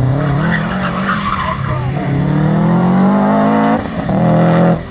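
Subaru Impreza WRX STI's turbocharged flat-four engine revving hard through a cone slalom, with tyres squealing on concrete. The revs climb steadily, dip briefly near the end, pick up again and then drop off sharply.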